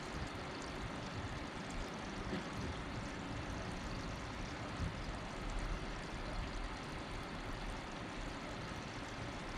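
Steady background noise: an even low rumble and hiss with no distinct events.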